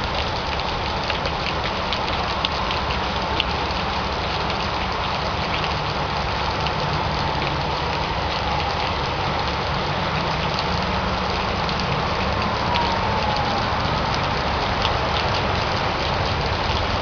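Heavy rain falling steadily, with many sharp drop hits close by over a constant wash of rain, and a low rumble underneath.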